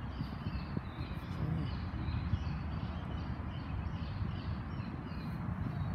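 Wind buffeting the microphone in a steady low rumble, with birds chirping over and over in the background.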